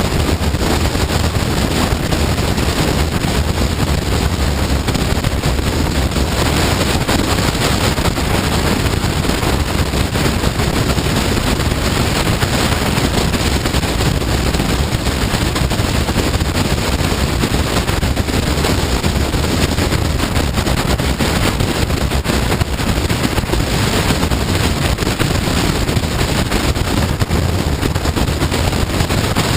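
Steady wind rush over the microphone on a moving motorcycle, with a Honda CBR954RR sport bike's engine running underneath.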